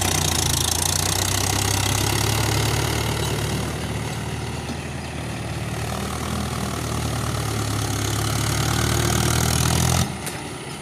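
Diesel tractor engine running steadily under load while it drives a rotavator through deep paddy-field mud. The engine note eases a little in the middle and drops off suddenly near the end.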